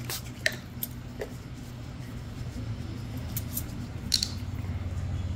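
A steady low hum, slowly growing louder, with a few light clicks and ticks over it.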